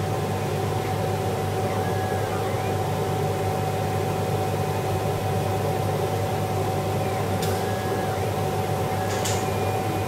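Laser cutter running while cutting 6 mm Perspex sheet: a steady mechanical hum. Twice there is a short whine that rises, holds and falls as the cutting head moves, and a few sharp ticks come in the second half.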